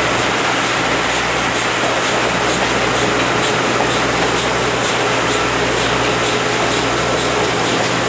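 Steady running noise of a passenger train hauled by the steam locomotive C58 239, heard at a coach window: the coach's wheels on the rails and rushing air, with a low steady hum and faint light ticks about once or twice a second.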